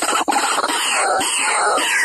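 White-breasted waterhen (ruak-ruak) calling: a rapid stutter of short notes at the very start gives way to harsh, downward-sliding calls repeated about twice a second, as played back for a lure.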